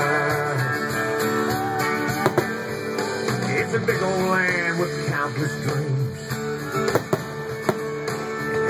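Music led by guitar, playing steadily. Two sharp bangs cut through it, about two seconds in and again about seven seconds in.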